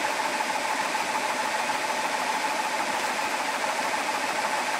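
GX CS4 portable high-pressure PCP air compressor running steadily with a constant whine, near the top of a fill at about 245 bar.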